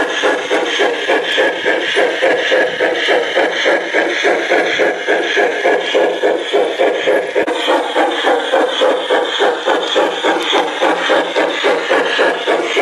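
Garden-scale model steam locomotive chuffing in a steady, even rhythm as it runs along the track pulling its coaches.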